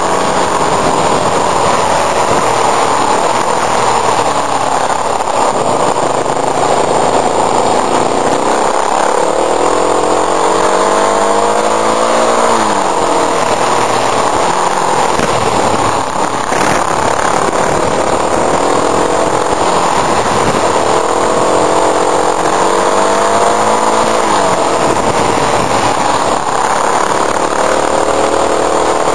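Motorcycle engine under way, its pitch rising and falling again and again as the throttle opens and closes and gears change through the bends, over a steady rush of wind and road noise.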